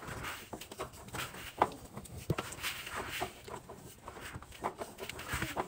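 Hand pressing and squeezing powdered laundry detergent in a washing machine drum, making irregular crunches and crackles.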